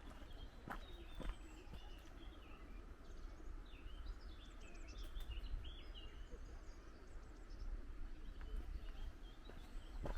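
A small songbird singing a quick run of high chirps and trills, busiest in the middle of the stretch, over a steady low outdoor rumble. A couple of footsteps sound in the first second or so.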